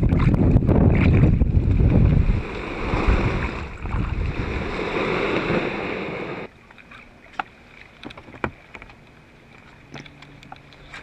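Strong wind rumbling on the microphone over shallow water sloshing, loudest in the first couple of seconds. About six and a half seconds in it cuts off abruptly to a quiet background with a few light clicks.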